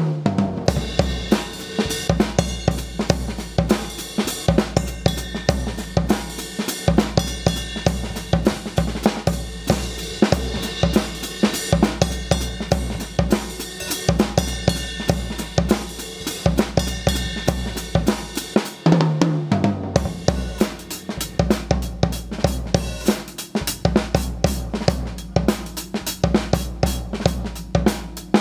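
Acoustic drum kit played in a steady, busy groove: kick drum, snare, hi-hat and cymbals hitting in an even rhythm over music with a sustained bass line. The beat breaks briefly twice, about a third of the way in and again about two thirds in.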